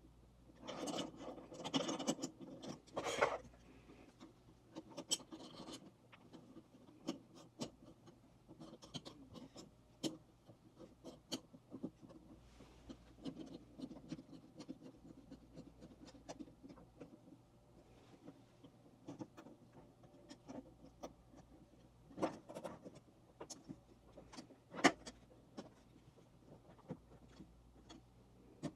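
Handling noise from metal camera-rig accessories being fitted and tightened: scattered clicks and taps with stretches of rubbing and scraping, and two sharper clicks in the last third.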